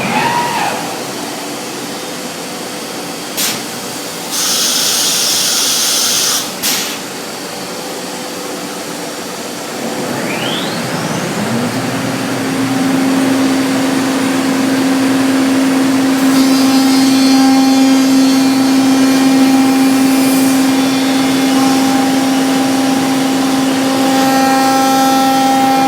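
Biesse Rover CNC router: its spindle whine falls away at the start. About four seconds in comes a two-second hiss set between two clicks. About ten seconds in a rising whine spins back up and settles into a steady running tone that grows louder as it works.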